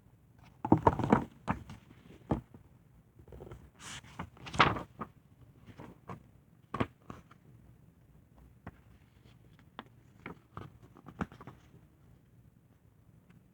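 Scattered handling noises: short knocks and rustles, with a cluster of louder ones about a second in and another near five seconds.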